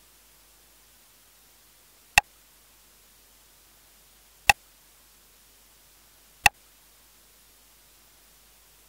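Three short, sharp clicks about two seconds apart, and a fourth at the very end, as a stylus taps the touchscreen of a Tunez NS07GPS double-DIN car DVD/GPS head unit. These are its touch-confirmation key clicks while paging through the navigation menus.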